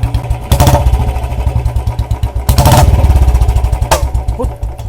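Royal Enfield Bullet BS6's single-cylinder fuel-injected engine running with its fast thumping exhaust beat, broken by two loud sharp exhaust pops about two seconds apart: backfire ('patakha') set off by cutting the kill switch off and on with a little throttle. The engine beat runs louder after the second pop.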